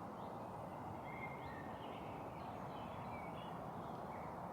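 Faint birdsong, short scattered chirps and whistles, over a steady low background hiss.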